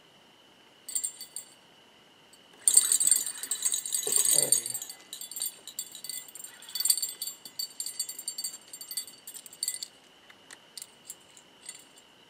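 Jingling, clinking rattles and knocks of fishing gear being handled as an angler gets up and takes a rod from its rod holder after a bite, loudest from about three to five seconds in. A steady high insect trill runs underneath.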